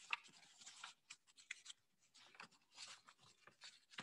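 Faint, intermittent rustling and light scraping of paper sheets being handled and turned over on a table.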